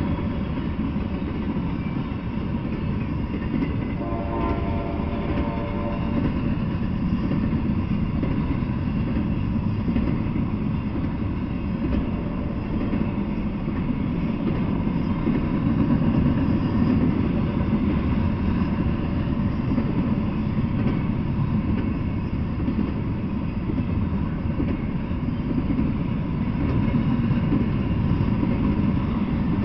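Double-stacked intermodal freight train rolling past: a steady rumble of steel wheels on rail. About four seconds in there is a brief pitched whine.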